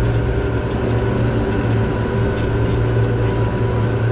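Party fishing boat's engine running steadily: a continuous low drone with a faint steady whine above it.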